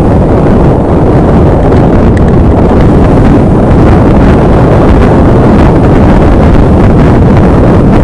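Off-road vehicle driving, heard as a loud, steady rumble with heavy wind buffeting on the microphone.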